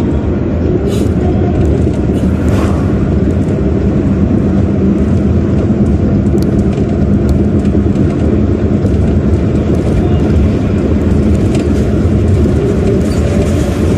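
Steady low road and engine noise of a moving car, heard from inside its cabin.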